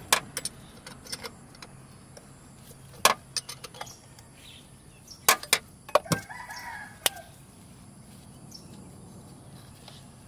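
Sharp metal clicks and clinks of a ring spanner on the tensioner pulley bolt of an air-con compressor belt, about ten scattered through the first seven seconds as the bolt is loosened. A chicken calls briefly in the background about six seconds in.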